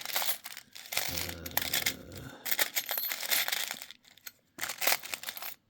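Small metal spare parts (bolts, screws, washers) clinking and rattling in a spare-parts tin as a hand sifts through them, in irregular bursts with short pauses.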